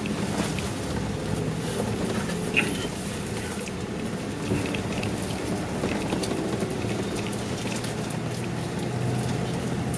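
A Scania K410 coach running steadily on the road: a continuous low engine drone mixed with tyre and road noise. A few light rattles come through, with one sharper click about two and a half seconds in.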